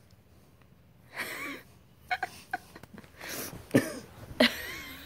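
Domestic cat giving a few short, raspy mews and chirps, with small clicks in between.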